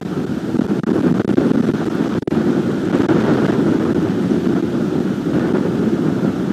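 Strong wind buffeting the nest camera's microphone: a loud, gusting rumble with no let-up, apart from a brief dip a little after two seconds in.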